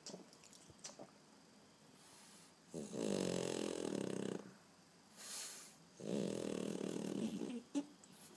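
French bulldog snoring loudly: two long rattling snores, each about a second and a half, with a short airy breath between them.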